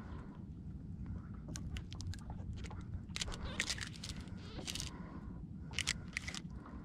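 A steady low rumble of wind on the microphone, with scattered crackling and rustling clicks that bunch up about halfway through and again near the end.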